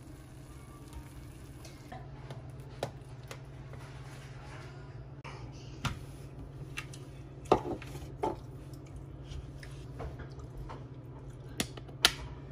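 Utensils clinking and scraping on dishes as the baked lasagna is served: a handful of sharp clinks, the loudest about seven and a half seconds in and near the end, over a steady low hum.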